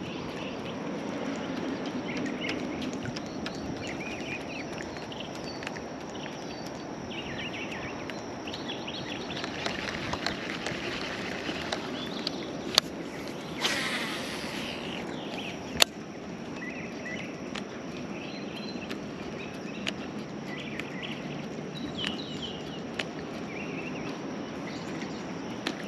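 Steady outdoor background noise on open water, with scattered short high chirps throughout and two sharp clicks about halfway through.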